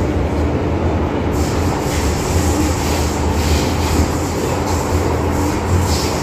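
MTR M-Train metro car heard from inside while running through a tunnel: a steady low rumble. About a second in, a high hissing rush of wheel and rail noise joins it and swells at times.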